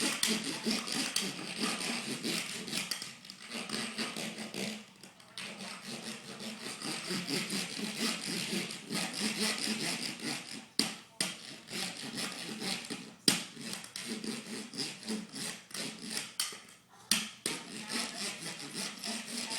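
A young child making a repeated rasping, scraping noise in uneven strokes, with a few sharp knocks in between.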